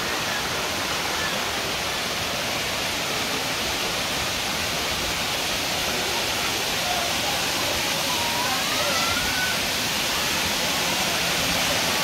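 Water from a spring pouring down a cascade of stone steps and running along a stone channel: a steady, even rush that gets slightly louder over the span.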